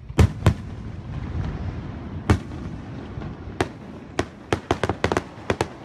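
Aerial firework shells bursting overhead: two heavy booms right at the start, another about two seconds in, then a quick run of sharp cracks in the last two seconds, with a low rumble between them.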